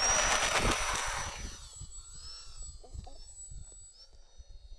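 Electric motor and propeller of a small RC F4U Corsair model taking off: a loud whirring with a high whine that fades over the first two seconds as the plane climbs away. After that a faint whine wavers up and down in pitch in the distance, with wind thumping on the microphone.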